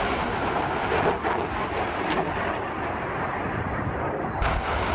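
Roar of a HIMARS rocket launch: the rocket motor's steady rushing noise as the rocket leaves the launcher.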